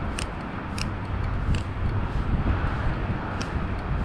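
Spinning fishing reel being cranked to retrieve the line, ticking lightly every half second or so. Under it runs a steady low rumble of distant road traffic.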